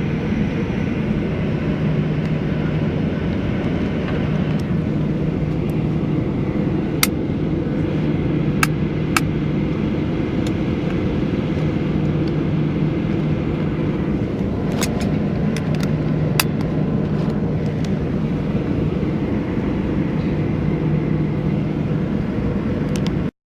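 Steady cabin noise of a Boeing 737 airliner with its jet engines idling while it holds for takeoff clearance: a low rumble with a constant hum, and a few sharp clicks partway through.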